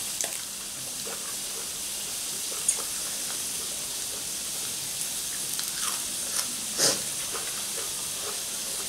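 Squid tentacles sizzling on a tabletop grill plate: a steady hiss, with a few short sharp clicks over it, the loudest about seven seconds in.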